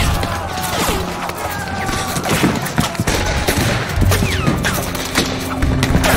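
Battle gunfire: a rapid fusillade of rifle shots, many cracks overlapping, with heavy impacts among them.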